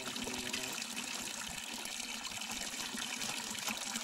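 Spring water pouring in a steady stream from a spout and splashing into a metal basin and onto the stones.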